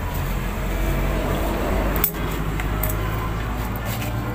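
Light metallic clinks of small starter-motor parts being handled during reassembly, with a sharp click about two seconds in, over a steady low hum.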